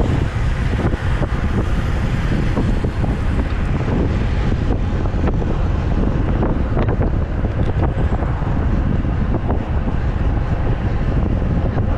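Strong wind buffeting the microphone of a road bike rider's camera: a loud, steady rumble.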